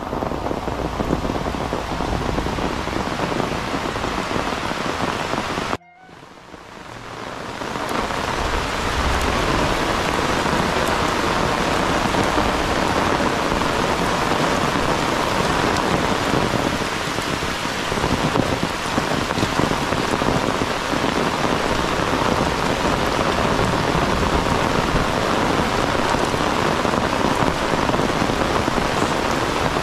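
Heavy rain falling steadily, a dense even hiss of drops on the ground and vegetation. The sound cuts out suddenly about six seconds in and fades back up over a couple of seconds.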